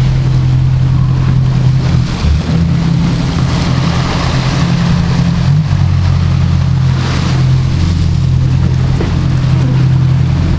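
Sportfishing boat's inboard engines running steadily under way, their low note shifting in pitch a few times, with water rushing and churning in the wake.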